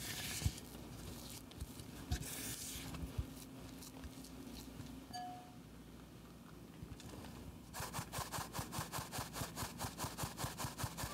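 Silicone spatula scraping and smearing butter and icing sugar against a glass bowl. From about eight seconds in, a fine metal mesh sieve is shaken in an even rhythm, about four strokes a second, sifting cake flour into the bowl.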